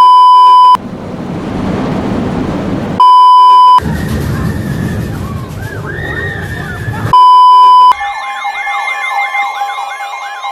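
A loud, steady electronic beep lasting under a second, repeated every three to four seconds and cut between clips of warning sirens. Between the beeps are rumbling noise and wailing sirens whose pitch sweeps up and down, with several sirens overlapping near the end.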